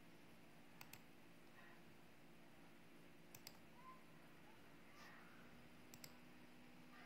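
Near silence broken by three computer mouse clicks, each a quick double tick, a few seconds apart.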